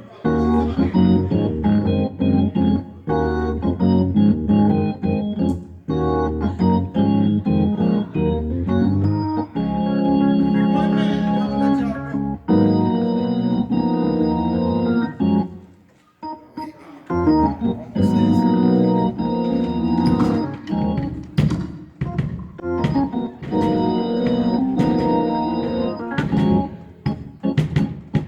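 An organ playing chords, some held and some short and stabbed, with a brief pause about sixteen seconds in.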